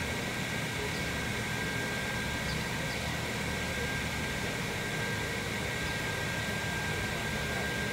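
Steady background noise of a large covered arena: an even hiss with a low hum underneath and a faint, steady high whine.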